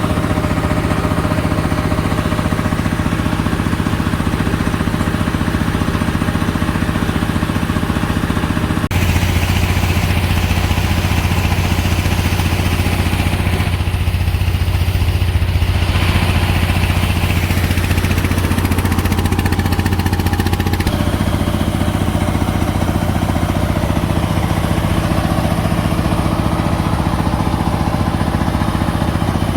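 An engine running steadily, with a sudden change in its tone about nine seconds in and a smaller one around twenty-one seconds.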